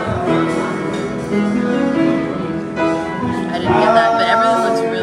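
A song playing: singing over instrumental accompaniment, with long held notes.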